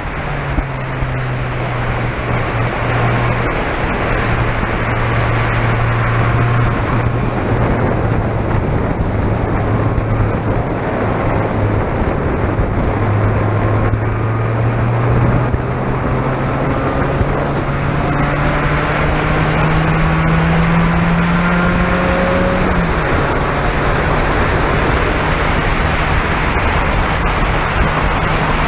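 Spec Racer Ford Gen3 race car's engine heard from the cockpit at racing speed. The revs drop at the start and stay low through a corner, then climb slowly for about ten seconds and fall suddenly with an upshift near the end. Heavy wind rush and wet-track spray noise run under it.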